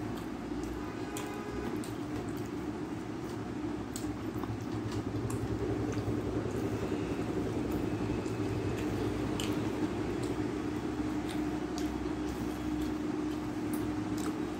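Fingers mixing rice with runny dal on a steel plate: soft squishing, with light clicks of fingers against the metal. Under it is a steady low hum that grows louder about halfway through.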